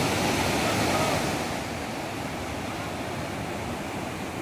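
A small fast-flowing mountain river rushing over boulders and rapids: a steady, dense white-water noise, slightly louder for the first second or so.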